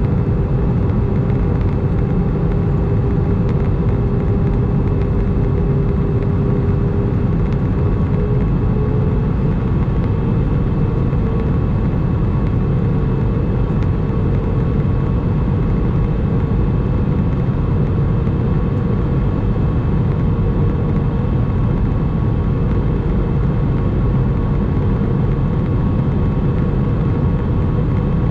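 Airbus A319 cabin noise in flight: a steady, deep rush of airflow and engine noise heard from inside the cabin, with a faint steady hum over it whose pitch steps up slightly about nine to ten seconds in.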